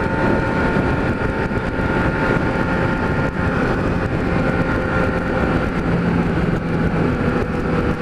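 Kawasaki Z1000 inline-four with an aftermarket 4-into-1 exhaust, running at a steady cruise under heavy wind rush on the microphone.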